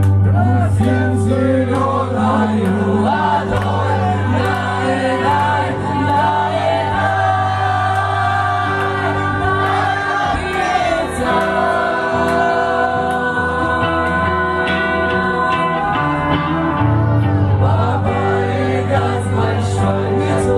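A live band playing amplified music, with a singer's voice over sustained bass notes.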